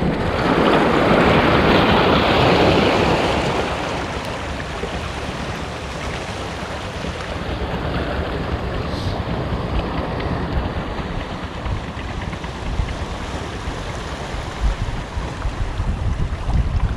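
Sea waves washing against a rock breakwater: one loud surge swells up about half a second in and eases off by about four seconds, followed by a steady wash. Wind rumbles on the microphone underneath.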